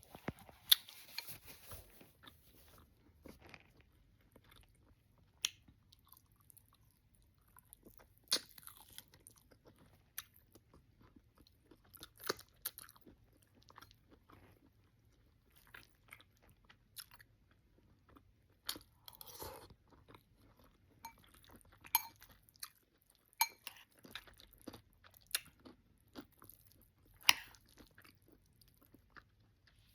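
Close-miked chewing and lip-smacking of someone eating oxtails with cabbage and rice: irregular wet smacks and small clicks of the mouth.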